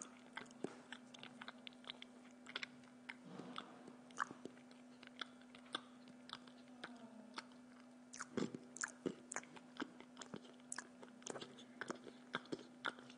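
A person chewing bread close to the microphone, with many irregular wet mouth clicks, several a second, over a faint steady hum.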